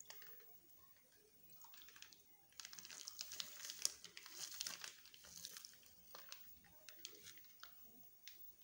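Liquid curd poured in a thin stream from a plastic packet into a steel bowl of water-soaked rice (pakhala): a soft, crackly trickle. It grows louder about two and a half seconds in and fades about three seconds later.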